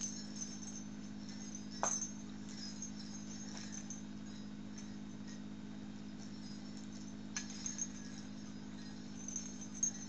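Small bells on a handmade harness jingling faintly now and then as it is handled, with a sharper knock about two seconds in and a few clusters of jingles near the end. A steady low hum runs underneath.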